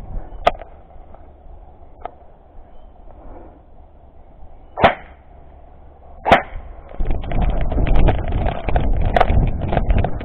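Airsoft guns firing single sharp shots, four of them spaced a second or more apart, then from about seven seconds in a rapid, irregular crunch of running footsteps and rustling.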